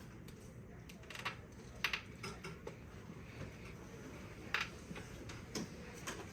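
Rubik's cube being turned by hand: a few scattered, irregular plastic clicks as its layers are twisted.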